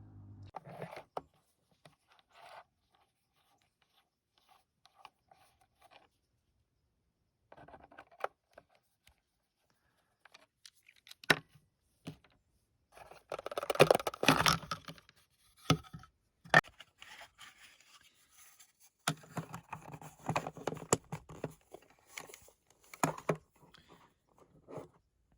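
Handling noise from opening a multimeter and swapping its battery: scattered sharp plastic clicks, scrapes and rustling. A dense burst of scraping comes about halfway through, and another busy stretch comes near the end.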